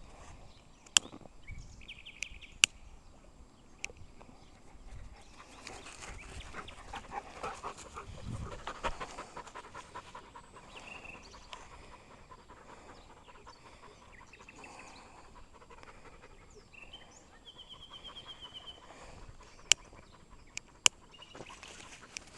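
A dog panting, fairly quiet, with a few sharp clicks scattered through.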